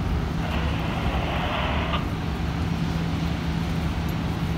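Fire engine's diesel engine idling with a steady low hum. About half a second in, a hiss starts and lasts about a second and a half.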